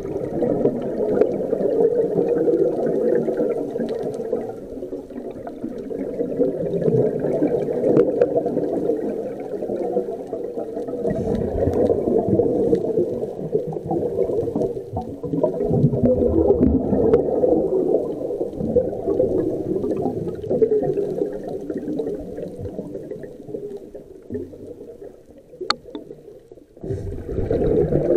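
Scuba diver's breathing through a regulator with exhaled bubbles, muffled through an underwater camera housing, swelling and fading every few seconds.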